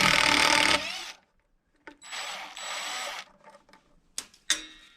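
Cordless power driver with a T30 Torx bit running a screw out of the brake line bracket: one run that winds down about a second in, then a second, shorter and quieter run. A couple of sharp clicks follow near the end.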